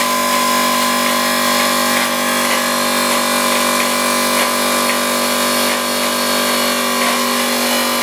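Air compressor of a compressed-air siren running steadily, with a constant hum of fixed pitches and no rise or fall.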